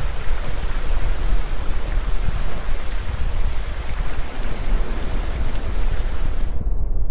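Loud, steady rush of falling water, heaviest in the deep low end. Near the end the hiss cuts off suddenly, leaving only a low rumble.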